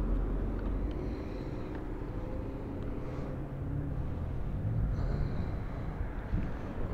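Wind rumble on the microphone and road noise while riding a Lectric XP electric bike on pavement. There is a gust at the start and a faint motor whine in places.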